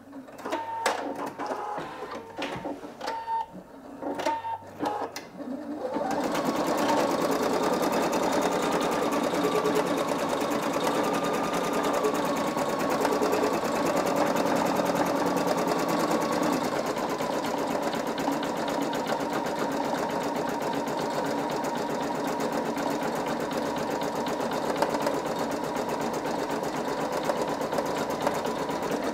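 Singer EM9305 embroidery machine stitching out a design. For the first six seconds or so it runs in stops and starts with clicks, then it settles into steady, continuous stitching.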